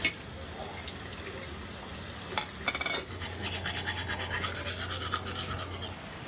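Manual toothbrush scrubbing teeth in quick, even back-and-forth strokes for about three seconds, starting halfway through. A few light clicks come just before.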